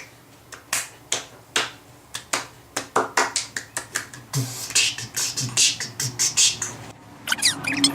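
A run of sharp clicks and snaps, about one or two a second at first, then quicker and denser with hissing pops from about four seconds in.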